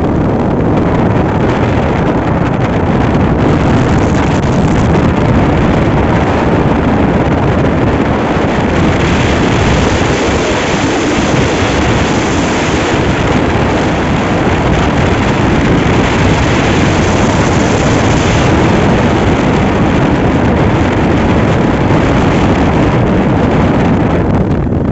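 Loud, steady wind rumble and rush buffeting the microphone.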